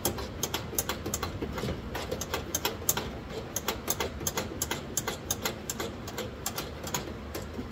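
Ratchet wrench clicking in quick, uneven strokes as a car door bolt is backed out.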